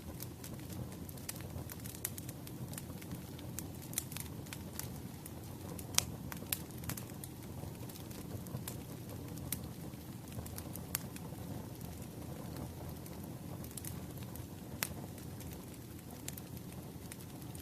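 Burning firewood crackling, with irregular sharp pops over a steady low rumble of the flames; the loudest pops come about six seconds in and near the end.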